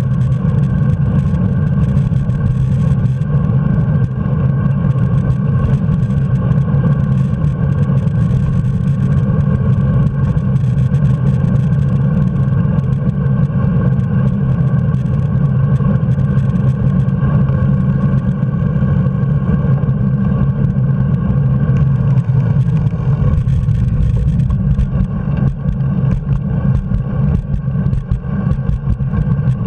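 Steady, loud rumble of wind and road noise picked up by a bicycle-mounted camera while riding along a paved street, unbroken throughout.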